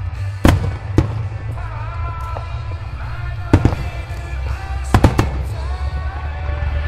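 Aerial firework shells bursting in six sharp bangs: one about half a second in, one at a second, one about three and a half seconds in, and a quick run of three about five seconds in. They go off over rock music with singing.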